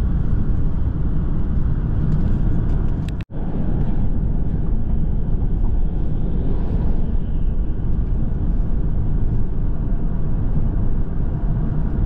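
Steady road and engine rumble inside a moving vehicle's cabin, cut off for an instant about three seconds in.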